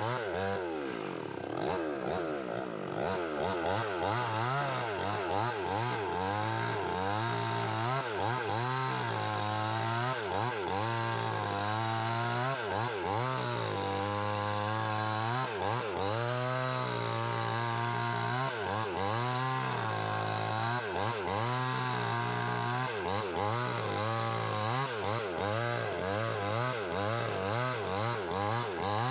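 Two-stroke gasoline chainsaw cutting wood, its engine pitch dipping under load and rising again over and over.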